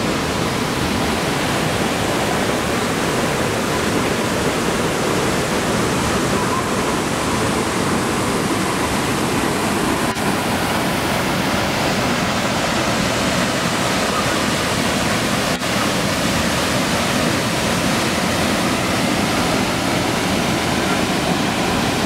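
Waterfall plunging into its pool in a single drop: a steady, unbroken rush of falling water.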